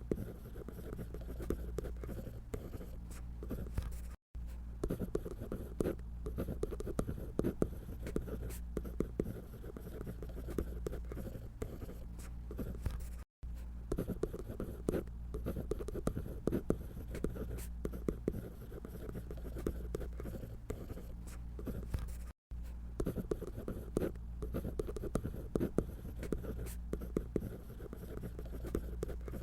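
A drawing tool scratching on paper in quick, close-set strokes. The strokes break off to silence for an instant three times.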